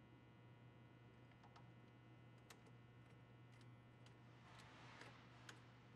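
Near silence: a steady low electrical hum, with a few faint small clicks and a brief faint rustle near the end.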